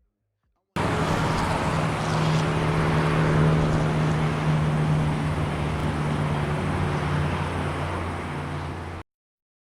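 Street traffic with a motor vehicle's engine running close by, a steady low hum over road noise. It cuts in suddenly about a second in and cuts off abruptly near the end.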